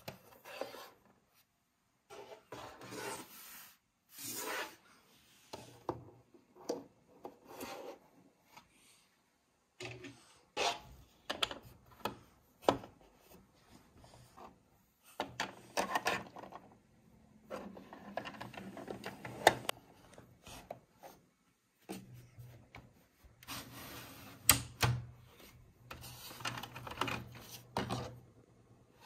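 Small plastic toys being handled on a plastic playset: figures set down with light clicks, and a toy shopping cart scraped and rolled across the plastic floor, in short irregular spells with quiet gaps between.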